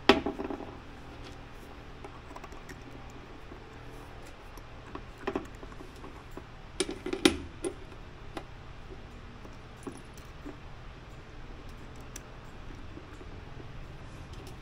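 Small metal parts being handled and set down on a workbench: a sharp clack at the start, then scattered clinks and taps, with a cluster of them about seven seconds in. A steady low hum runs underneath.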